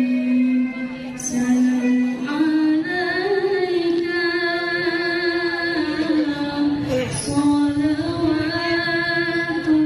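A woman's voice reciting the Qur'an in the melodic tilawah style through a microphone, holding long ornamented notes that rise and fall slowly with only brief pauses for breath.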